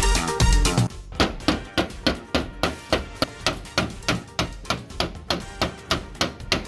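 Background music, then from about a second in, a steady tapping of a metal hand tool on the dented steel rear fender of a Toyota Yaris, about three strikes a second, each with a short metallic ring: panel beating to work out the dent.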